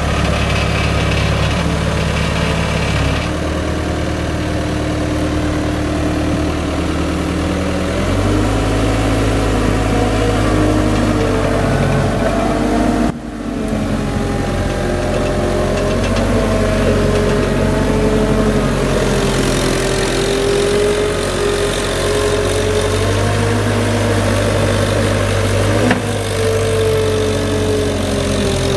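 Caterpillar 279C compact track loader's diesel engine running, its speed stepping up about a third of the way in, with a higher wavering whine over it in the second half.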